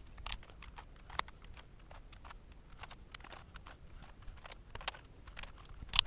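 Royal Kludge keycaps being pressed onto the switch stems of a mechanical keyboard: scattered faint plastic clicks, with a sharper click about a second in and another near the end.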